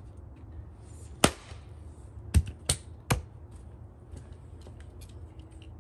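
A small red-oak-handled axe strikes a piece of firewood stood on a stump chopping block, one sharp chop about a second in, splitting it. A second later come three quicker wooden knocks in close succession.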